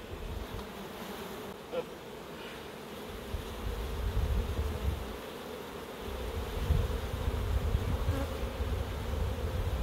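Honeybees humming steadily around an open hive as a brood frame crowded with bees is lifted out. A low rumble joins in from about four seconds in.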